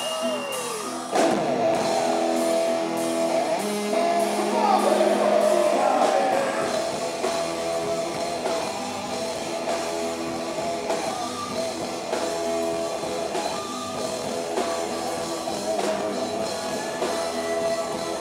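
Rock band playing live: electric guitar over a drum kit, with bent, gliding guitar notes near the start and again a few seconds in, where the music is loudest.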